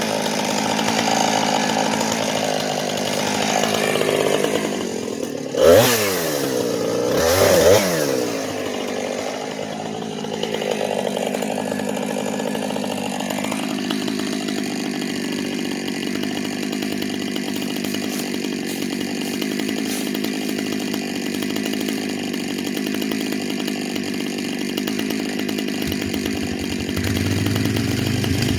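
Gas chainsaw running while cutting a dead ash tree, with two brief sharp revs about six and eight seconds in, then running steadily.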